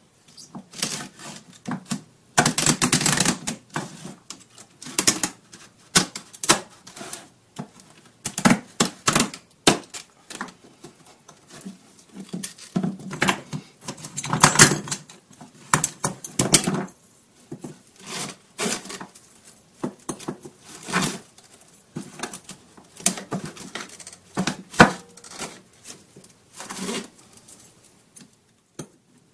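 Cutting the strings out of an aluminium racquetball racquet with cutters: a long run of irregular sharp snips and clicks, some single, some in quick clusters.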